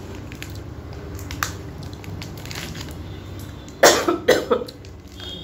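A person coughing, three short sharp coughs in quick succession about four seconds in, over a steady low hum.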